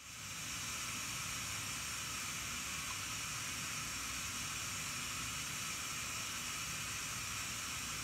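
Steady hiss with a low rumble underneath.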